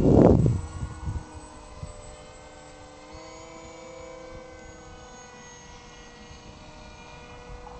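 Wind buffets the microphone for the first half second. Then comes the steady whine of a radio-controlled model airplane's motor and propeller overhead, its pitch rising slightly about three seconds in.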